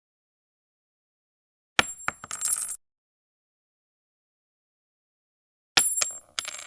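A small coin dropped onto a hard surface, twice, about four seconds apart: each time a sharp first strike, then a few quick bounces and a high metallic ring that settles within about a second.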